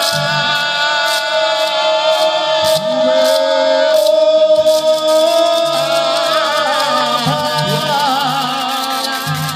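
A man singing without words, holding one long wavering note for several seconds before the melody moves on, with sharp clicks sounding alongside, thickening in the second half.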